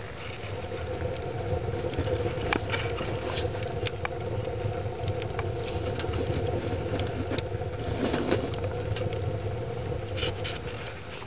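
Wood burning in the open feed chamber of a rocket mass heater: a steady low rumble of the stove's draft with scattered crackles and pops from the fire. It grows louder over the first couple of seconds and eases off near the end.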